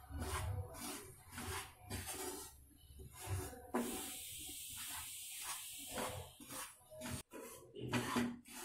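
Wooden spatula scraping and turning wheat flour as it dry-roasts in a nonstick kadai: repeated soft scrapes, about two or three a second, with a steady hiss between about four and six seconds in.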